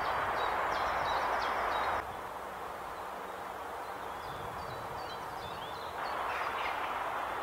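Outdoor woodland ambience: a steady hiss with faint, high bird chirps and short whistles over it. The hiss drops in level about two seconds in and rises again about six seconds in.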